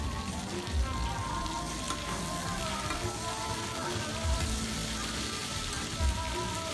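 Food sizzling in hot oil on a large flat pan, turned and scraped with two metal spatulas, with a few dull knocks scattered through.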